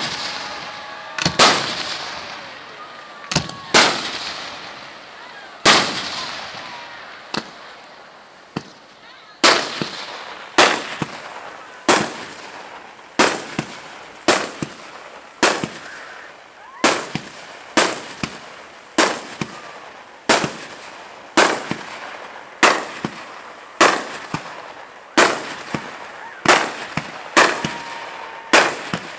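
Aerial fireworks shells bursting overhead with sharp bangs, each fading off in an echo. For the first several seconds the bangs come singly, a couple of seconds apart; from about ten seconds in they run steadily at roughly one to two a second.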